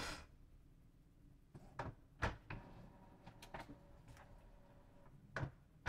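Epson L3250 inkjet printer being switched off: a sharp click as its power button is pressed, then a run of mechanical clunks and knocks, the loudest about two seconds in, with a faint motor whine between them and one more knock near the end.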